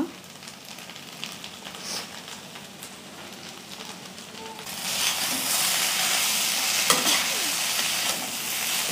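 Okra stir-fry sizzling softly in a stainless steel kadai. About five seconds in, a steel ladle starts stirring it, and the sizzle and scraping get louder, with a sharp clink of the ladle against the pan near the end.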